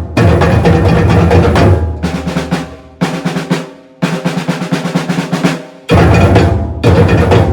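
Batucada percussion ensemble playing, with deep bass drums (surdos) under dense snare and hand-drum strokes. The low drums drop out about two seconds in. The ensemble stops sharply twice, and the full band with bass drums comes back in near the end.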